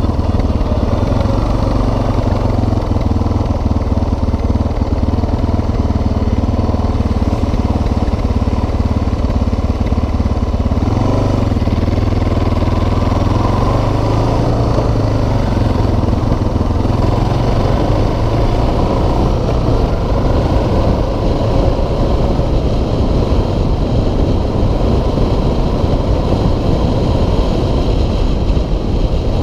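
2006 Suzuki DR650SE's single-cylinder four-stroke engine running steadily while the bike is ridden along the road; its note changes about eleven seconds in and rises and falls briefly a few seconds later.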